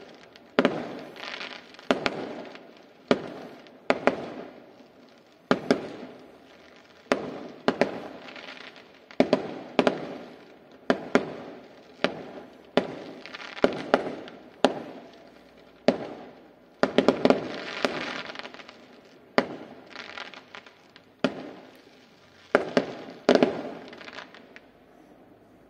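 Aerial fireworks bursting in a steady barrage: sharp bangs about one a second, now and then two or three close together, each trailing off in an echo. The barrage thins out and stops shortly before the end.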